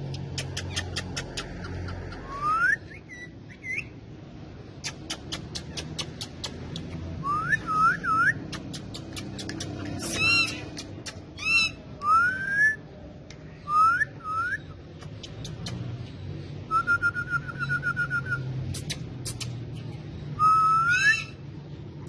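Pakistani ringneck parrots whistling and chattering. Short rising whistles come again and again, between quick bursts of clicking chatter and a few harsher calls. A fast, even trill comes about two-thirds of the way in.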